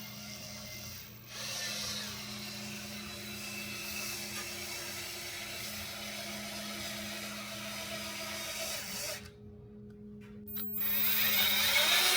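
Power drill running clockwise, twisting strands of 10-gauge copper wire together. The motor picks up about a second in, stops briefly about nine seconds in, and starts again, louder, near the end.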